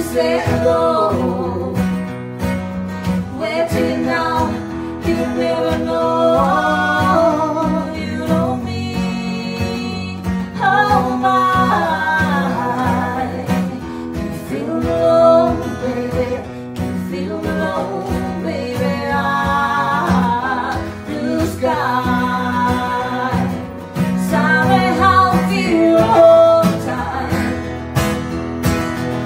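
Live acoustic song: a woman singing lead, accompanied by an acoustic guitar.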